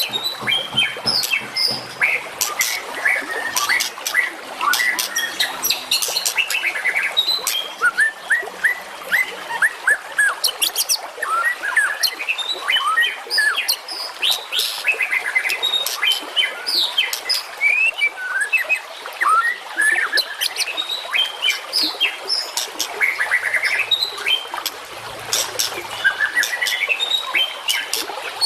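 Songbirds singing in a dense, unbroken stream of fast chirps, whistles and sharp chip notes, several phrases overlapping.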